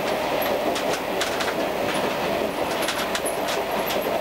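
Diesel railcar running along the track, heard from inside the driver's cab: a steady running noise with irregular sharp clicks of the wheels going over rail joints.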